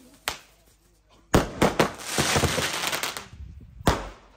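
Firecrackers going off: a few sharp bangs, then a dense run of rapid crackling lasting about a second and a half, and another bang near the end.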